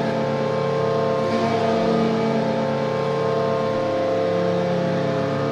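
Hockey goal horn sounding one long steady blast, a chord of several held tones, signalling a goal.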